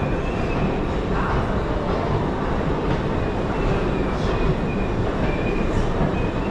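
A train running through a station: a steady, loud rumble with a faint high wheel squeal that comes and goes several times.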